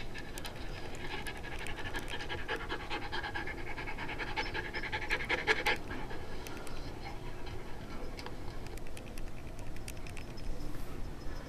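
A dog panting fast, steady quick breaths that are loudest in the first half and then thin out to fainter, sparser breaths.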